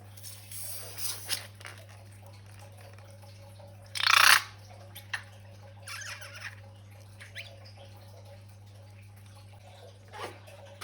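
Wet, squishy sounds of slime being squeezed out and dripping, with one louder squirt about four seconds in and a few small sticky clicks after it, over a steady low electrical hum.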